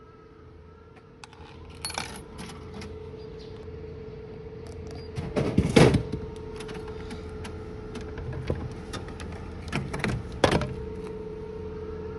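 Vending machine coin mechanism clicking as a 100-yen coin is fed in, then, about halfway through, a loud clattering thump as a can drops into the delivery tray, followed near the end by a couple of sharp knocks as the can is taken out. A steady hum runs underneath.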